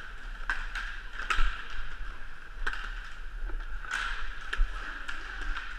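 Inline hockey skates rolling on a hard indoor court with a steady hum, broken by several sharp clacks of sticks and puck.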